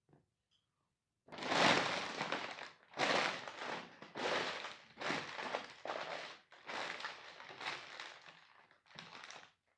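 A McDonald's paper carrier bag being stamped flat under Nike sneakers, crumpling and crushing in about seven loud bursts. The first burst is the loudest.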